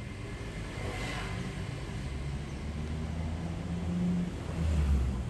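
Low rumble of motor traffic with a vehicle engine growing louder a few seconds in.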